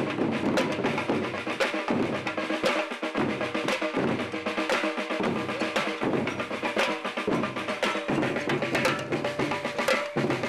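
Drumming and banging percussion: dense, irregular hard knocks and drum hits keeping up throughout, with a faint steady tone underneath.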